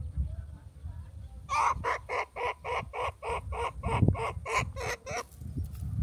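A bird calling a rapid, even series of about fourteen harsh notes, about three and a half a second, starting about a second and a half in and stopping suddenly near the end, over a low rumble.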